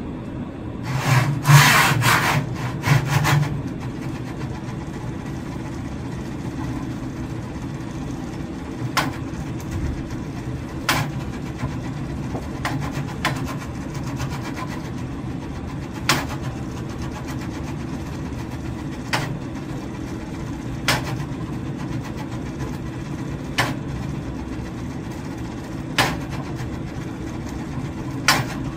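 Double inverted pendulum rig: its motor-driven cart rattles hard along the aluminium rail for a couple of seconds as it swings the pendulum up. After that a steady low hum runs underneath, and sharp knocks come every two to three seconds as a wooden mallet strikes the balanced pendulum and the cart jerks to catch it.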